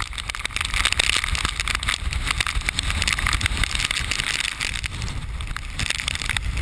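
Hurricane-force wind, gusts around 85 mph, buffeting the camera's microphone: a loud, gusting rumble with constant fluttering.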